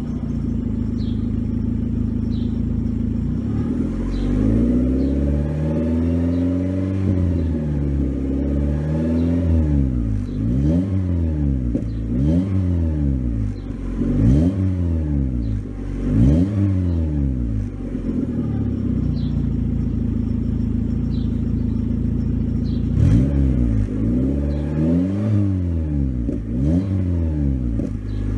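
A 1993 Volkswagen Jetta Mk3's engine through an exhaust with the center muffler removed: idling, then revved up and let fall again many times in quick succession, settling back to idle for a few seconds, then revved the same way again before returning to idle.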